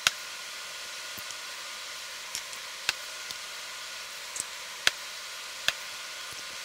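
Eggs being cracked against a mixing bowl: a few separate sharp taps of eggshell on the bowl, over a steady background hiss.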